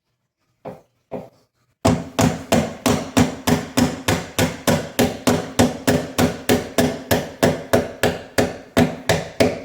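Hammer blows on metal: two single knocks, then a fast, even run of strikes, about three a second, each with a short metallic ring.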